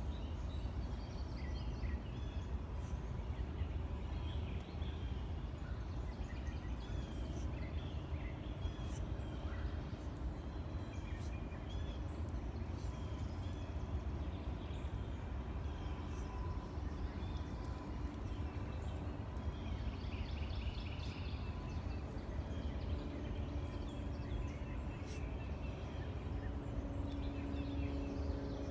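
Swamp ambience: scattered bird chirps and calls, with a rapid trill about twenty seconds in, over a steady low rumble. A faint steady hum comes in near the end.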